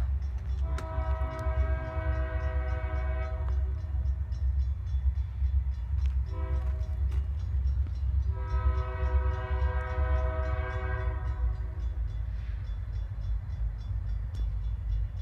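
Diesel locomotive air horn sounding for a grade crossing: a long blast, a short one about six seconds in, then another long one, over the steady low rumble of the approaching train.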